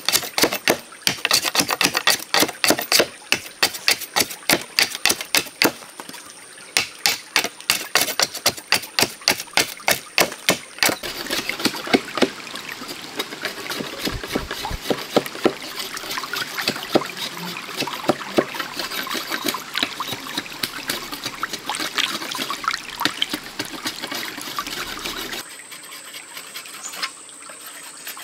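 Rapid, sharp strokes of a large knife chopping and shaving a bamboo pole, in quick runs with short pauses. About eleven seconds in this gives way to the steady rush of a small stream running over rocks, with scattered light taps.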